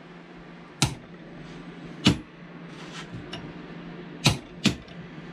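Several separate sharp metal knocks and clicks as a wrench and hands handle a diesel injector body clamped in a steel bench vise, two of them close together past four seconds.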